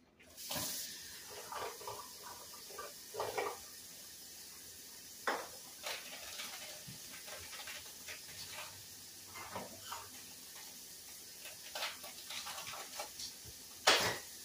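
Kitchen faucet running hot tap water into a measuring cup, a steady hiss that starts about half a second in, with scattered clinks and knocks of kitchenware and one sharp knock near the end.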